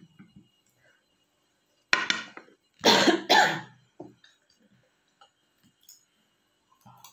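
A woman coughing three times: one cough about two seconds in, then two more in quick succession a second later.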